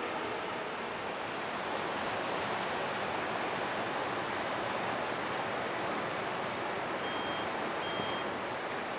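River water rushing steadily, an even wash of noise. Two brief high tones sound faintly near the end.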